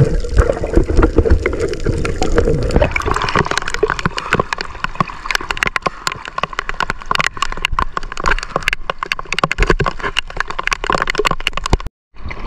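For about the first three seconds, muffled water sloshing and gurgling around a submerged action camera. Then the camera comes above the surface and rain patters on the sea and the camera housing, a dense run of sharp ticks over the wash of choppy waves. The sound cuts out briefly near the end.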